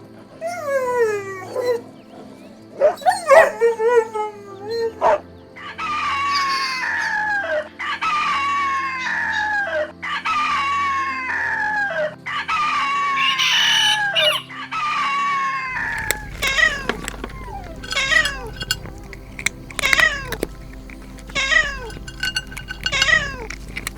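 Kittens meowing over and over. In the middle comes a run of about six drawn-out meows, each falling in pitch; after that the meows are shorter and come quicker.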